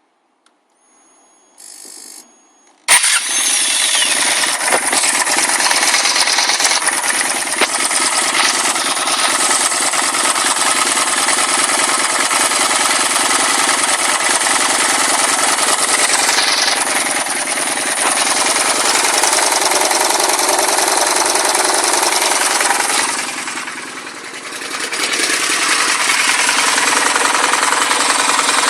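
An engine starts about three seconds in and keeps running with a loud, rapid knocking clatter, which the owner questions as a possible engine knock. The noise dips briefly about 24 seconds in, then returns.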